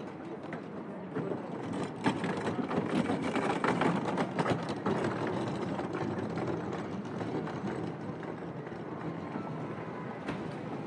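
City street traffic at a busy intersection: a vehicle passes close by, loudest a few seconds in, with a sharp knock about two seconds in, then a steadier traffic noise.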